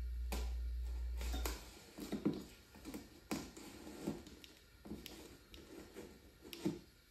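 Small cardboard parcel being opened by hand: scattered rustles, taps and clicks of cardboard flaps and plastic packing being handled. A steady low hum cuts off about a second and a half in.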